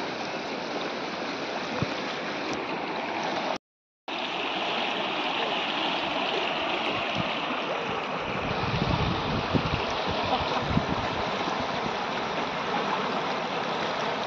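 Shallow river rushing over rocks, a steady noise of flowing water. The sound drops out completely for about half a second near four seconds in, and uneven low rumbling bumps join it in the second half.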